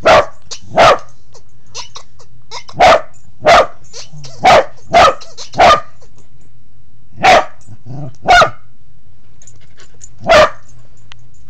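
Corgi barking, about ten short, loud single barks at uneven intervals.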